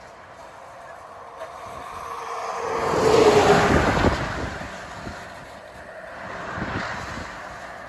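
A heavy truck carrying an excavator passes close by on the road. Its noise swells to a loud peak about three seconds in, with a whine that drops slightly in pitch as it goes by, then fades. Underneath is the steady rolling of empty freight wagons crossing a rail bridge, and a second, smaller road-vehicle swell comes near the end.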